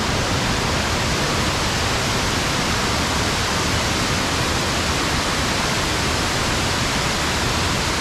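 Waterfall with a steady, even rush of falling water.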